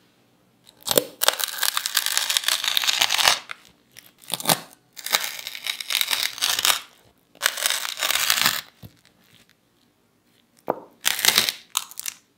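A knife cutting down through a crispy fried grated-potato pancake, the shredded potato crust crunching with each stroke. There are about five separate cuts; the first is the longest.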